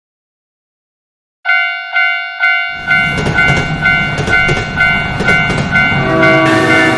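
Japanese railroad crossing alarm bell starts up suddenly about a second and a half in, ringing its 'kan-kan' about twice a second. A passing train's low rumble joins about a second later.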